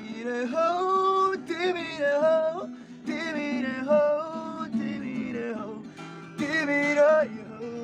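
A man singing a song while accompanying himself on a strummed acoustic guitar.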